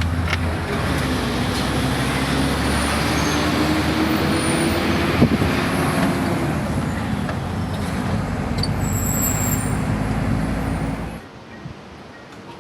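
Motor vehicle engine running with steady road noise, with one short knock about five seconds in, cutting off abruptly near the end.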